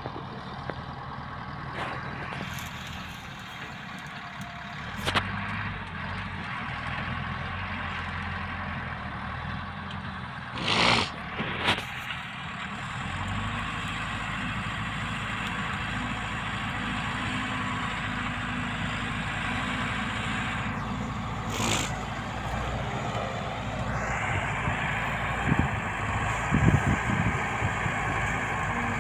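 Caterpillar 130G motor grader's diesel engine running steadily as the machine grades and pushes dirt, growing louder near the end. A few short bursts of noise cut in, the loudest about eleven seconds in.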